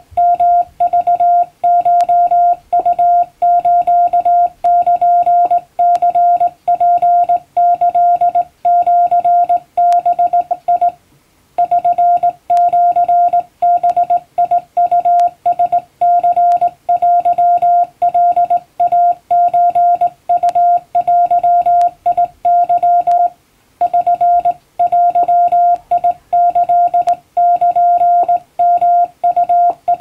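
Morse code sent by hand on a straight telegraph key, heard as a steady tone of about 700 Hz keyed on and off in dots and dashes, spelling out a Japanese Wabun-code telegram. The sending stops twice, briefly, about 11 and 23 seconds in.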